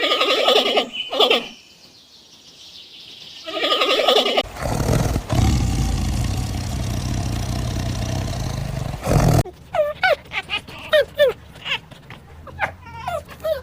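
Farm animal calls: a few pitched calls, then a steady low rumbling noise lasting about five seconds, then a run of short, quick calls that rise and fall in pitch.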